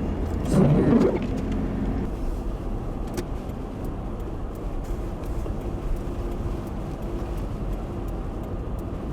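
Steady road and engine noise heard from inside a moving car, with a louder rumble a little under a second in.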